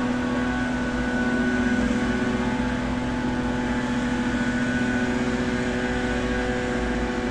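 Gardeners' small-engine power tool running at a constant speed, heard from inside a room: a steady engine drone that wavers only slightly in pitch.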